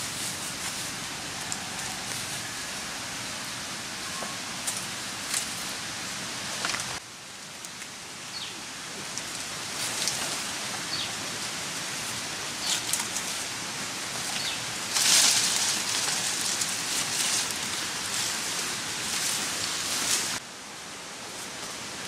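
Rustling and crackling as a person pushes on foot through dense ferns, leafy undergrowth and dry leaf litter, with a louder stretch of brushing leaves about fifteen seconds in.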